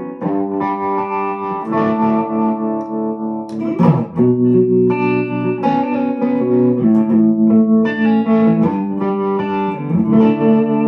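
Schecter Sun Valley Super Shredder electric guitar played through a hybrid tube amp and a 1x12 cabinet with effects: sustained chords ringing and changing about once a second, with a short scratchy strum about four seconds in.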